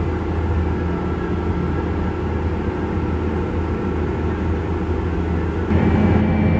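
Case IH Quadtrac 620 tractor heard from inside its cab while pulling a drill across the field: a steady engine drone with a low hum. Near the end the sound steps up louder and a higher steady whine joins it.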